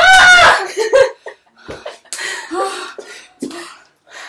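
A woman's loud high-pitched shriek during a playful scuffle, a short thud about a second in, then bursts of breathy laughter.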